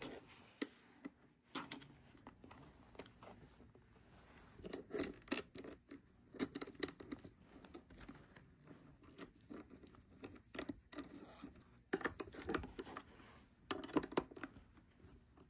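Hands handling wires and crimped ring terminals on a battery shunt's brass bolt: faint scattered clicks, scrapes and rustles, with a short metallic click from a wrench going onto the nut near the end.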